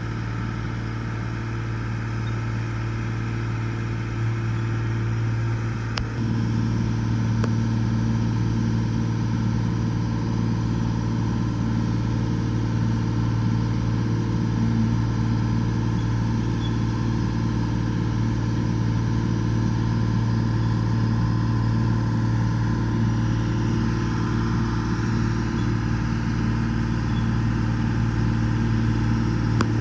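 Excavator's diesel engine running steadily, its note getting a little louder and fuller about six seconds in.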